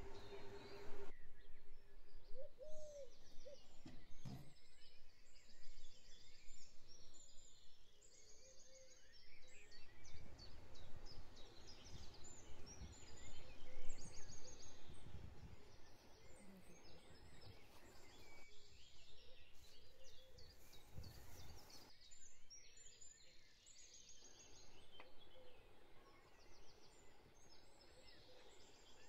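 Dawn chorus recording: many songbirds chirping and trilling together, over a low rumble, with a single knock about four seconds in.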